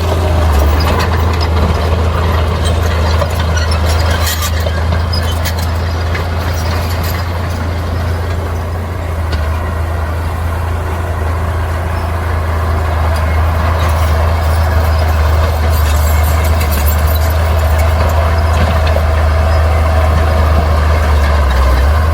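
Heavy diesel earthmoving machinery running steadily with a deep engine drone, with scattered metallic clanks and squeaks about four seconds in and again past the middle.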